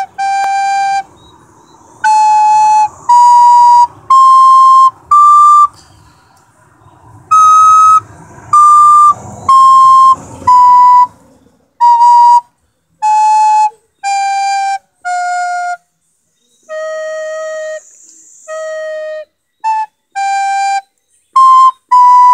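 A recorder playing a slow melody of separate held notes, each about half a second to a second long with short breaks between them, moving up and down within about an octave.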